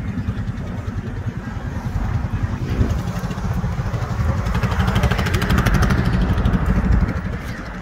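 Car engine idling with a low, uneven rumble, a little louder in the middle and easing near the end.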